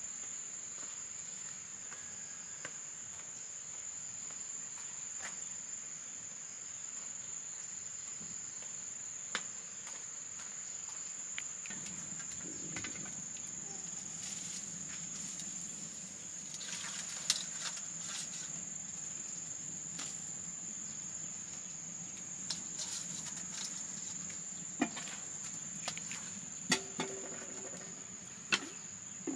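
Steady high-pitched drone of chirring insects, with scattered sharp clicks and knocks, most of them in the second half. A faint low hum joins about halfway through.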